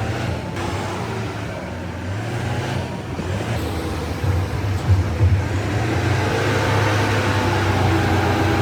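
A construction vehicle's engine running steadily, its pitch slowly rising and falling, and growing a little louder in the second half.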